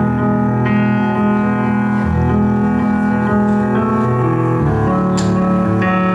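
Live music: slow instrumental intro on a stage piano keyboard, held chords that change every second or two.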